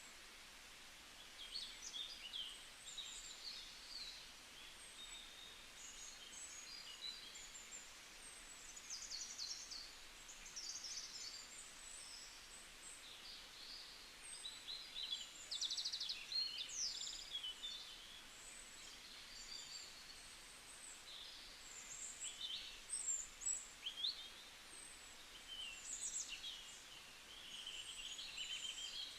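Several small songbirds chirping and trilling on and off in a forest, over a faint steady background hiss.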